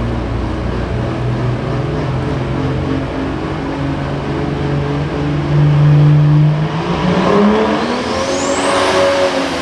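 Pro stock pulling tractor's turbocharged diesel engine running hard under load. Near the end its pitch rises and a high whine climbs steeply.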